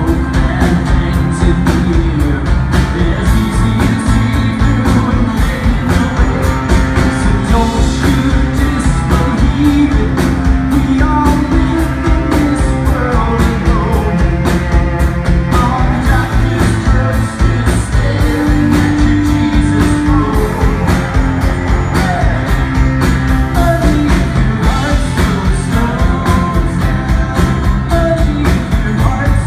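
A rock band playing live through a PA: acoustic and electric guitars, electric bass and a drum kit keeping a steady beat, loud and continuous.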